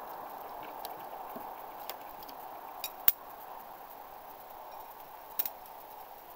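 Throwing knives clinking against each other in the hand as they are pulled from the wooden target and carried back: a few sharp metallic clicks, the loudest about three seconds in and a short cluster near the end, over a steady background hiss.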